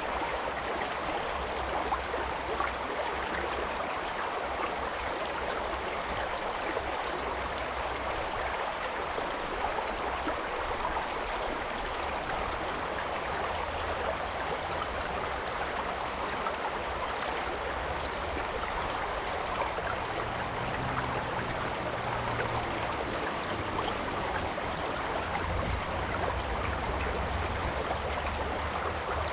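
Stream water rushing over rocks: a steady, even rush.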